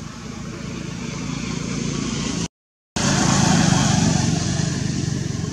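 Engine of a motor vehicle passing close by, growing louder to a peak about three and a half seconds in and then easing off slightly. The sound cuts out completely for about half a second a little before the peak.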